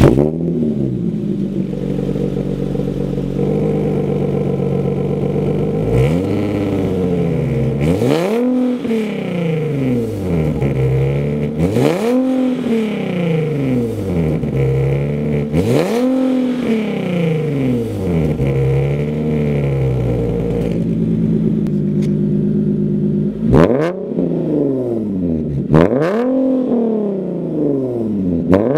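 Nissan 370Z's 3.7-litre V6 through a Fi valvetronic exhaust, catching and flaring at the very start, then idling and being free-revved in repeated rising-and-falling blips. The first revs are with the exhaust valves closed; in the last third the valves are open, and three quicker, sharper blips come through louder.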